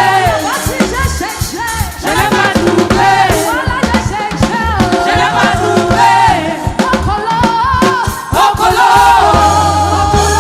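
Gospel praise song: singing voices over a band with drums and a heavy bass line.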